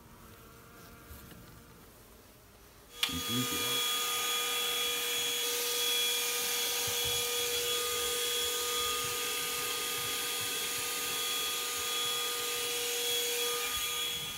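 Bee vacuum motor switching on suddenly about three seconds in and running steadily, a whine over a rush of air.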